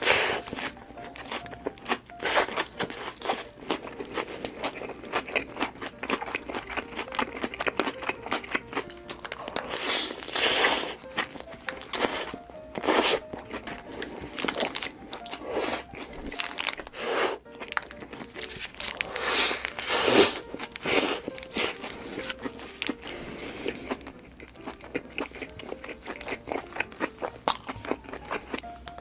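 Close-miked eating of Subway sandwiches: repeated bites and chewing with crisp crunches of the bread, the loudest bites a few seconds apart. Soft background music plays underneath.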